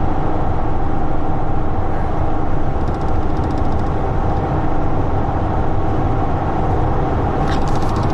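Steady vehicle engine and road noise: a low rumble with a faint steady whine over it.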